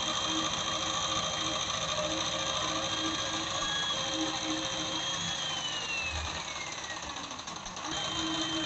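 Electric jigsaw running as its blade cuts through a wooden plank, a steady motor whine over the rapid chatter of the blade. About five seconds in, the whine falls in pitch as the motor slows, dips in loudness, then comes back up to speed near the end.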